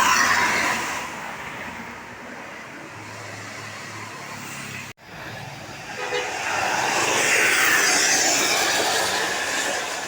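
Tour buses driving past: a broad rush of engine and road noise that dies down, breaks off at a cut about halfway through, then swells up again and fades as another bus passes. The last of a musical telolet horn tune fades out at the very start.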